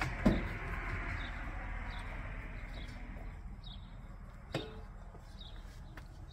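Clicks and knocks of hands handling a propane pigtail fitting at the top of a tank valve, with one sharp knock just after the start and single clicks about four and a half and six seconds in. A soft hiss fades out over the first few seconds, and small birds chirp now and then.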